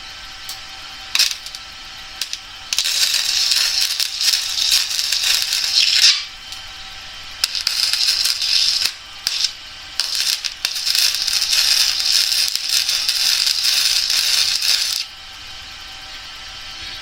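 Wire-feed welder arc crackling as weld beads are laid on steel, in several runs: a couple of short starts, then about three seconds, a second and a half, and a final run of about four seconds that stops suddenly.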